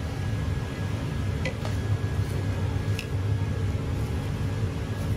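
A few light metallic clicks from locking pliers working the hub nut of a Mercedes Sprinter wheel bearing, tightened to pull the new bearing race into the hub, over a steady low rumble.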